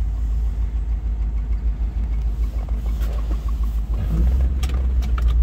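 1955 Mercury Montclair's V8 idling, heard from inside the cabin as a steady low rumble, with a few light clicks near the end.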